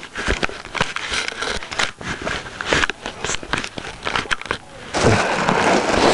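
Box packaging crackling and crinkling as a subwoofer is worked out of its box: a run of sharp crackles and clicks, then a louder continuous rustling scrape about five seconds in.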